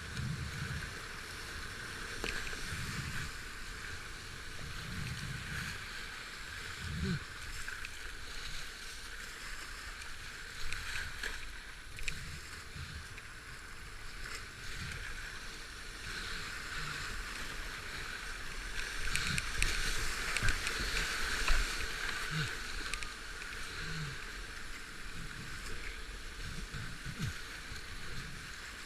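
Rushing river water around a paddled boat, with splashes from paddling. The water and splashing get louder for a few seconds about two-thirds of the way through.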